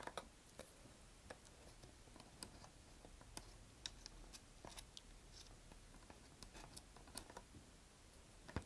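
Faint, irregular clicks and light scrapes of a single-edge razor blade trimming soft epoxy clay flush inside a paper rocket body tube.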